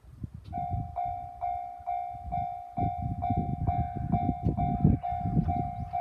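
Japanese railway level-crossing warning bell starting up about half a second in, then sounding a steady electronic ding about twice a second as the barriers come down. A low, uneven rumble runs underneath.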